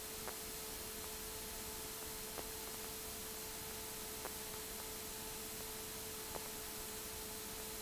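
Faint steady hiss with a low electrical hum and one steady tone, plus faint ticks about every two seconds: the open cockpit intercom and radio audio feed with nobody transmitting or talking. No engine is heard.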